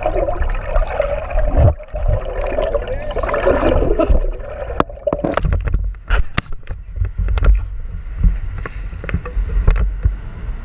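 Water churning and gurgling around an underwater camera. About four seconds in, this gives way to a steady rush of wind and boat noise above the surface, with a run of sharp knocks and clicks for a few seconds.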